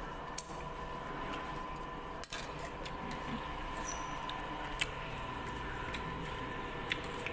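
Dining-room background hum with a few light, sharp clicks of spoons and dishes on the table.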